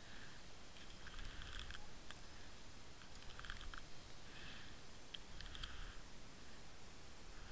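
Faint underwater clicking and crackling, picked up through a submerged camera housing, with irregular clusters of sharp ticks and a low rumble underneath.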